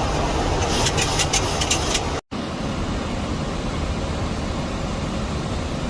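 Steady rushing noise of a Boeing 737 MAX 8 flight deck in flight, airflow and air-conditioning hiss. There is a run of faint crackles in the first two seconds, and the sound cuts out for an instant a little over two seconds in.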